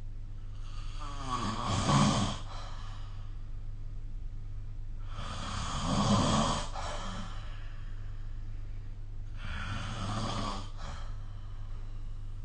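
Snoring: three long snores about four seconds apart, the third softer than the first two, over a steady low hum.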